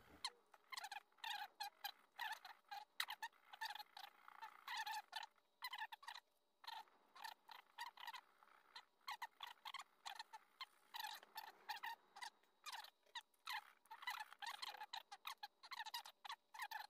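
Rusty pocketknife blade being rubbed with emery cloth to clean it: quick squeaky scraping strokes, a few a second and unevenly spaced.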